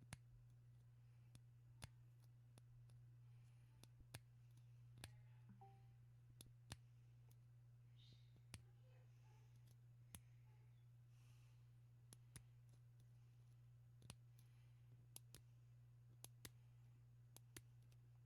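Faint, irregular small clicks, about one a second, from the parts of a disassembled Assa Twin 6000 lock being handled, over a steady low hum.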